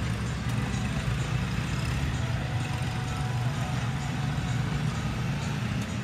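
Steady town ambience: a low, continuous rumble of distant road traffic.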